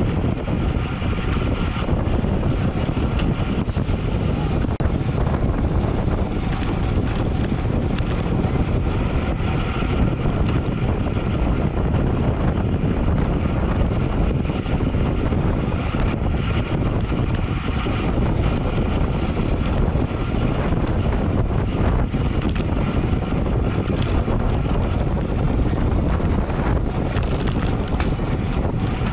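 Steady wind noise on a camera microphone carried along at road-bike racing speed.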